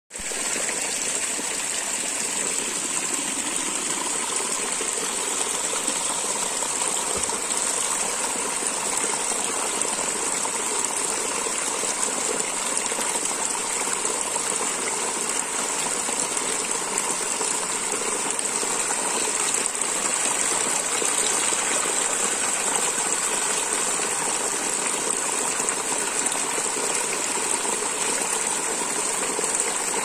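Shallow stream water splashing over rocks in a small cascade, a steady, even rush of flowing water.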